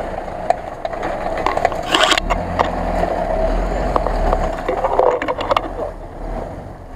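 Mitsubishi L200 pickup's engine running under load as it crawls past over leaf litter and fallen branches. The rumble grows deeper and louder for a few seconds midway, with scattered sharp cracks and knocks and a brief hiss about two seconds in.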